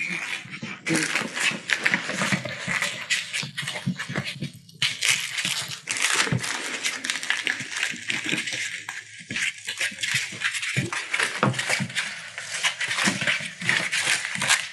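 Collie puppies playing: a dense run of small clicks, scratches and rustles as they scrabble on a hard floor and chew and tug at a plush toy.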